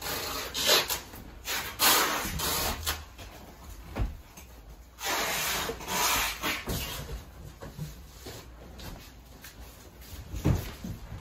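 Movers packing household goods: a series of short rubbing, scraping and rustling bursts of wrapping paper, tape and boxes, mostly in the first seven seconds, then a dull knock near the end.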